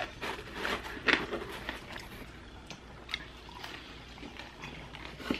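Close-up eating sounds: chewing and biting into fried chicken and taco pizza, a scatter of short crackles and mouth clicks, the loudest about a second in.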